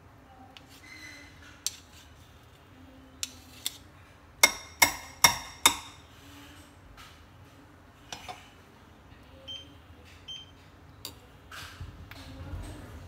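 Utensils clinking against a glass bowl of pancake batter: a few scattered clicks, then four quick ringing taps in a row about halfway through, like a spoon knocked on the bowl's rim, followed by softer knocks.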